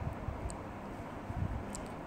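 Long-bean and coconut-milk curry simmering in the pan, a steady soft hiss.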